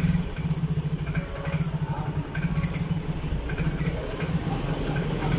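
A Yamaha Mio J scooter's single-cylinder fuel-injected engine is being revved by hand at the throttle. It runs unevenly, stuttering and not picking up, with a choked-sounding exhaust. This is the 'brebet' symptom of a fuel supply fault: the fuel pump pressure measures only 10–15 psi.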